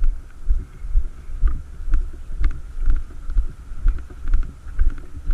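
Walking footsteps heard as low thuds about two a second, with light clicks and rattles of carried gear.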